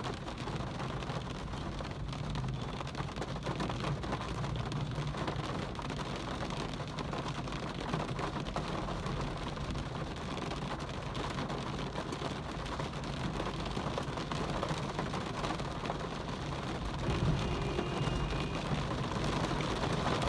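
Steady rain falling, an even hiss with a low rumble under it. A brief pitched sound comes in near the end.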